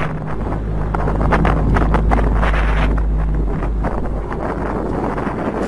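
Wind buffeting an outdoor phone microphone, gusting and rumbling, with a low steady hum underneath that ends about three seconds in.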